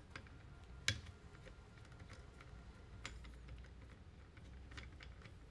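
Faint, scattered small metallic clicks and ticks from an FX Crown air rifle's action being worked with a hex key to take out the probe, the sharpest click about a second in.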